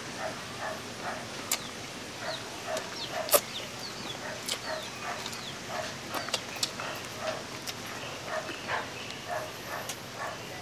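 A dog whining in short repeated cries, about two a second, begging for food. Sharp clicks and smacks of people eating with their hands come through now and then.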